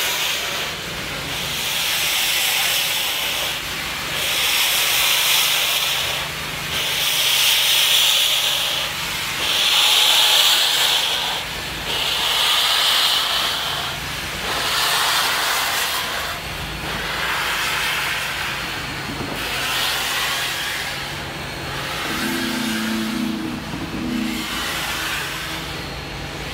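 Union Pacific 844, a 4-8-4 steam locomotive, starting away slowly with steam venting at its cylinders. Long hisses of steam come in a slow even rhythm, about one every two and a half seconds, and grow weaker in the second half.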